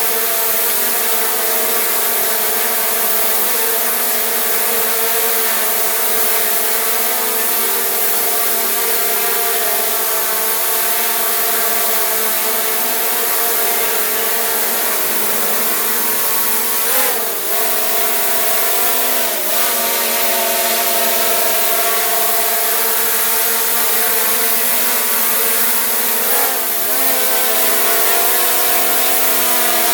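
DJI quadcopter drone's motors and propellers running with a steady whine of several tones over a hiss. The pitch dips briefly and recovers three times, a little past halfway, about two seconds later, and near the end.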